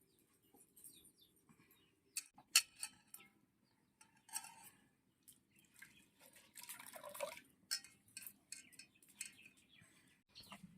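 Freshly washed leafy greens being strained: water dripping and splashing off them in short bursts, with light clinks of metal utensils.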